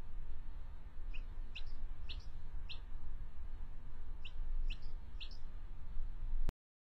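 Baby chick peeping: seven short rising peeps, four in quick succession and then three more, over a low steady rumble. The sound cuts off suddenly near the end.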